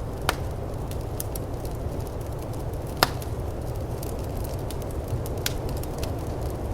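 Firepit crackling with scattered small pops and two louder snaps, one just after the start and one about three seconds in, over a steady low rush of snowstorm wind.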